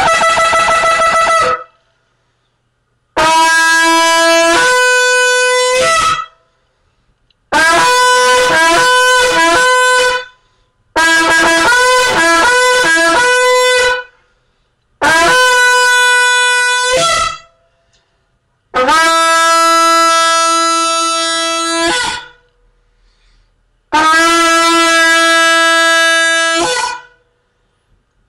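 A long spiral shofar with an enlarged mouthpiece blown in a series of loud blasts about three seconds long, separated by short pauses. Most blasts start on a lower note and jump up to a higher one, and some break into quick back-and-forth steps between the two notes.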